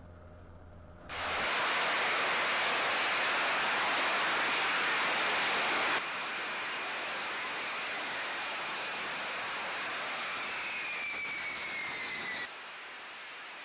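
Lockheed Martin F-35B's Pratt & Whitney F135 jet engine at high thrust in hover for a vertical landing: a loud, steady rush of noise that starts suddenly about a second in and drops abruptly in level about six seconds in. Near the end a falling whine comes through as the jet sits on the deck, then the level drops again.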